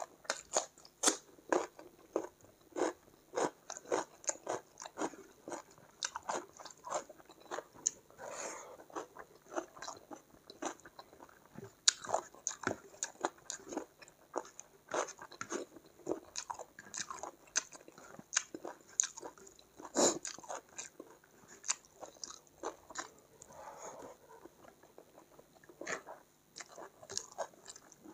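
Close-miked eating: a cucumber slice bitten and chewed with crisp crunches, then chewing of hand-fed mouthfuls of rice and chicken curry. It is a dense, uneven run of short sharp crunches and clicks.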